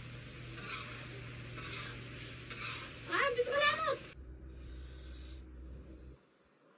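Food sizzling in a cooking pot, with a utensil stirring and scraping about once a second. A short high call cuts across about three seconds in, and the sizzling gives way to a quieter, different background about four seconds in.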